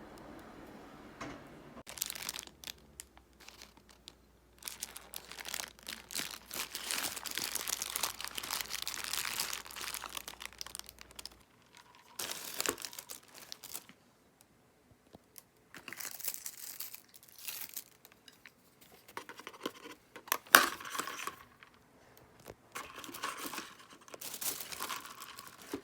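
Packaging being handled and opened by hand: irregular bursts of crinkling and tearing, with a sharp knock about twenty seconds in.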